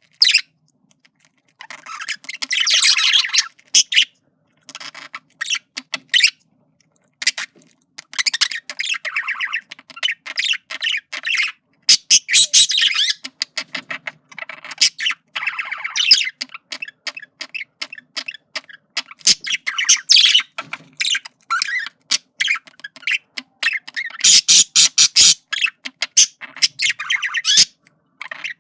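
Male budgerigar chattering and warbling in flirting, in bouts of a second or two full of rapid clicks and squawky notes, separated by short pauses.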